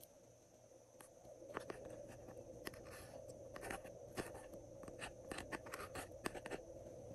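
Thin metal spatula scraping and ticking against a plastic eyeshadow palette pan as it digs out soft blue makeup: a run of small, quick scrapes starting about a second in.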